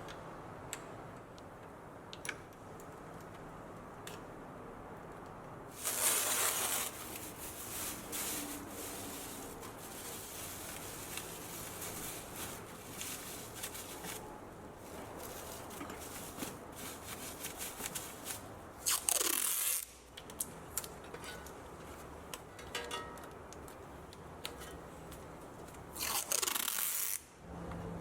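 Scrubbing and rubbing sounds from detailing work on a car, broken by three short, loud hissing bursts about six, nineteen and twenty-six seconds in.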